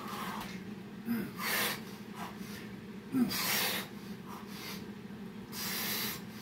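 A man's hard breathing while exercising: three loud puffs of breath about two seconds apart, with the strain of burpees, over a steady low hum.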